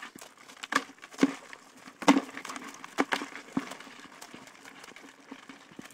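Wire-mesh crab trap knocking and rattling against a plastic bucket as crabs are shaken out into it: a run of sharp knocks and clatters, the loudest about two seconds in.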